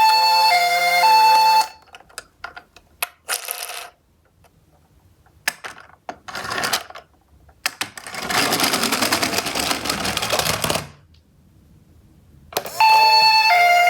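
A two-tone hi-lo ambulance siren cuts off after about a second and a half. Small clicks and two short clatters follow, then a rattling run of about three seconds from a Tomica die-cast toy ambulance rolling down a steep slope. The siren starts again near the end.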